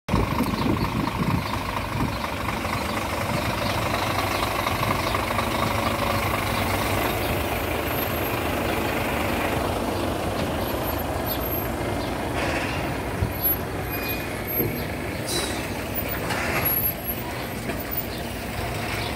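Loaded Scania semi-truck's diesel engine running steadily as it rolls slowly past, with tyres on asphalt. A couple of short hisses come near the end.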